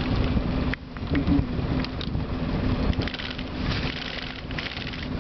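Steady low hum of the boat's engine under way, with wind on the microphone and a few light knocks from the rigging as the sail is hauled up.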